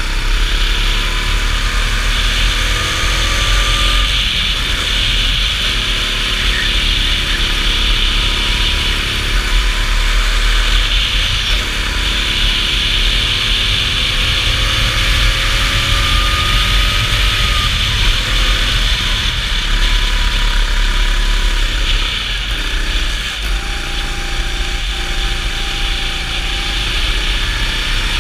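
Go-kart engine at racing speed, its pitch climbing along the straights and dropping back for the corners, over a steady low rumble.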